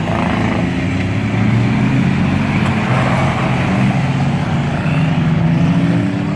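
Several enduro race cars' engines running together as the cars lap a paved oval track, their overlapping engine notes shifting in pitch as they pass.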